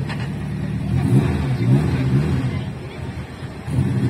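Drag-racing hatchback's engine revving at the start line, its pitch rising and falling. It drops back briefly about three seconds in, then climbs again near the end.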